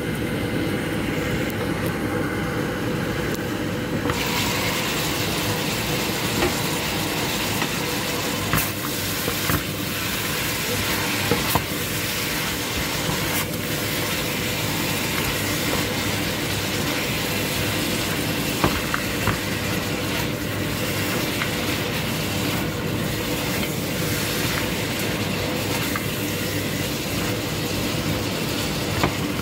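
Pork ribs, corn and bell pepper sizzling in a non-stick frying pan. The sizzle turns brighter about four seconds in, as the pan is uncovered, and is then stirred with a spatula. There are scraping sounds and a few sharp taps of the spatula against the pan.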